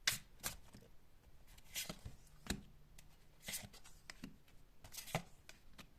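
Tarot cards being handled: a scattered series of about ten short, soft card snaps and taps.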